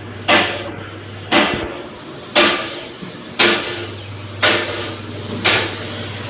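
Sharp knocks repeating evenly about once a second, over a low steady hum.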